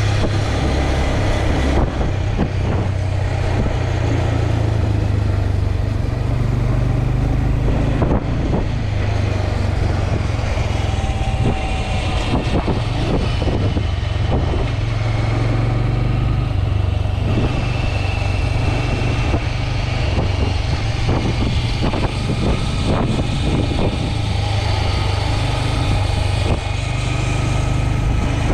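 Wind noise on the microphone and road noise from a motorcycle riding along a city street, a steady low noise with ragged gusts throughout.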